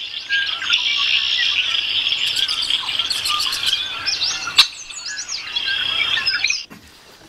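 A dense chorus of birds chirping, many short calls and quick glides overlapping, with one sharp click about four and a half seconds in; the chorus cuts off abruptly shortly before the end.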